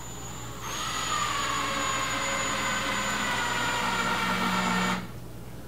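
DeWalt cordless drill/driver driving a screw through a door hinge into wood: a steady motor whine lasting about four seconds, its pitch dropping a little, then stopping suddenly.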